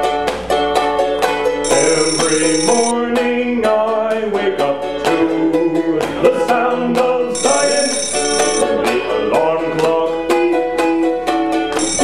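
Live acoustic band music with plucked string instruments playing a steady rhythmic tune. A high shimmering sound comes in for about a second, twice.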